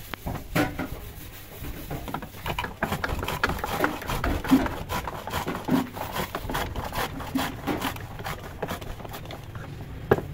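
Hand kitchen work: irregular knocks, clicks and scraping of utensils on wood as shallots are prepared, busiest in the middle.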